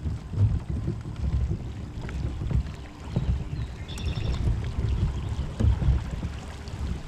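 Gusty low wind rumble on the microphone, with water and hull sounds from a fishing kayak moving across a pond. There is a short high chirp about four seconds in.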